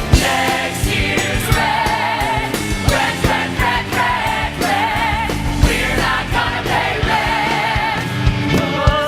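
A cast of stage musical singers in ensemble, with vibrato voices over band accompaniment and a steady drum beat.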